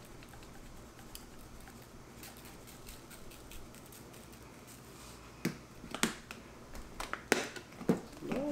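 Dry barbecue rub shaken from a plastic shaker bottle onto chicken thighs in a foil pan, a faint sprinkling. From about five seconds in come a run of sharp clicks and knocks as the plastic shakers are handled and set down.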